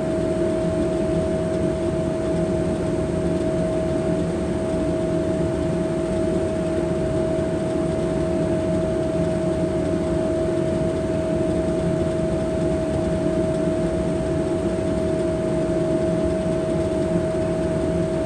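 Towboat's engines running with a steady drone and a constant whine.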